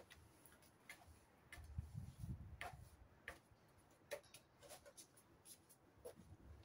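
Faint, irregular clicks and taps of a broom and plastic dustpan being worked on a tiled floor, with a brief low rumble about two seconds in.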